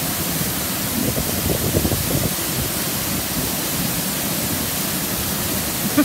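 Waterfall pouring into a rock pool: a steady rushing of falling water.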